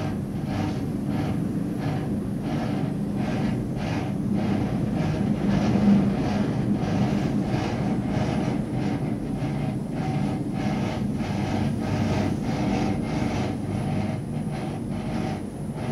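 Steady low rumble and hum of a gondola cabin riding along its cable, with a regular pulsing hiss over it two or three times a second.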